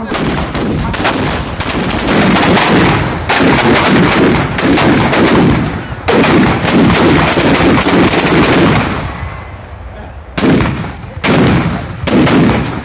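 Firecrackers packed inside a burning Ravan effigy going off in rapid, continuous strings of sharp bangs. After a brief lull about ten seconds in, several more short bursts of cracks follow.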